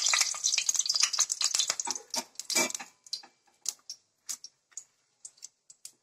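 Panch phoron spices and a dried red chilli crackling in hot oil in a kadai, with a spatula stirring against the pan for the first two to three seconds. After that the crackle thins to scattered sharp pops as the seeds keep spluttering.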